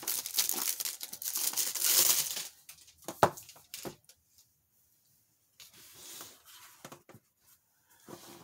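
Packaging crinkling and tearing as a boxed set is unwrapped, then two sharp knocks about three seconds in, a brief quiet, and softer rustling with light clicks.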